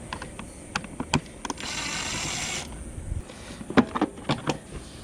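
A small power tool's motor whirs steadily for about a second, backing out a panel bolt, amid sharp clicks and knocks of tools and plastic bike panels being handled.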